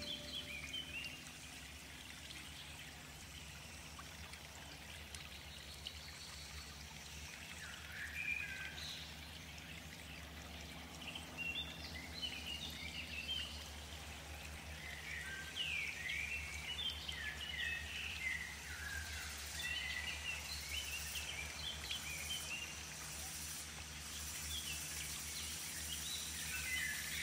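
Birds chirping in scattered bursts of quick, twittering calls, busiest through the middle and again near the end, over a steady low rumble.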